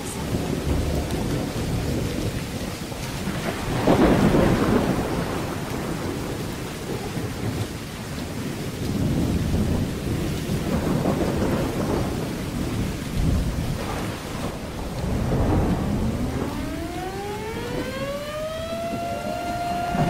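Thunderstorm: steady heavy rain with rumbling thunder, the loudest clap about four seconds in. Near the end an outdoor civil-defense warning siren starts to wind up, its pitch rising.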